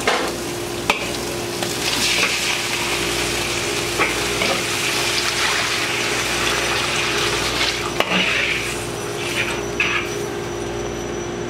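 Chopped goat innards sizzling in a wok while a steel ladle stirs them, clicking against the pan a couple of times; stock is poured in partway through and the hot pan hisses as the liquid is stirred in. A steady hum runs underneath.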